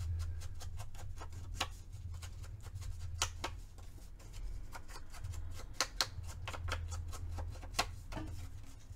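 Paper being inked by hand for a junk journal: irregular light taps and scuffs as the ink pad or blending tool is dabbed and rubbed along the paper, over a low steady hum.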